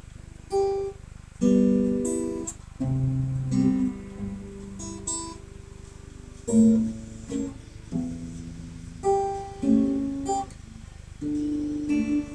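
Acoustic guitar played at a halting rehearsal pace: single plucked notes and chords, each struck and left to fade, in short phrases with pauses between them.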